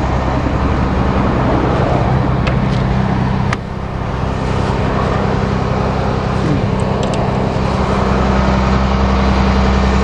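An engine idling steadily with a low, even hum, with a brief dip in level about three and a half seconds in.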